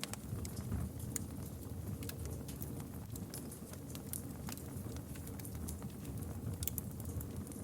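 Campfire crackling: irregular sharp pops and snaps over a low steady rumble of burning wood.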